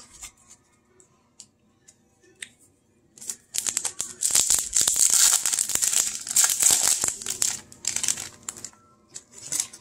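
Crinkling and tearing of a foil trading-card pack wrapper as it is torn open, starting about three and a half seconds in and lasting some five seconds, after a few soft clicks.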